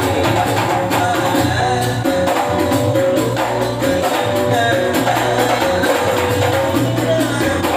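Hadrah ensemble playing: frame drums (rebana) and hand drums beating a fast, even rhythm under a melody on an electronic keyboard.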